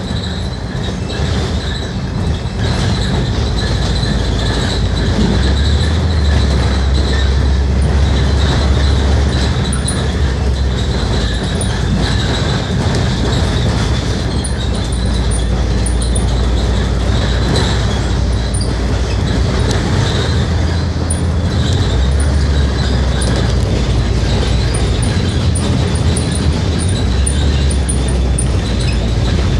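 Scania K310UD double-decker bus heard from its upper deck while driving: a deep diesel engine drone over steady road noise. The drone shifts in level and pitch several times as the bus accelerates and changes gear.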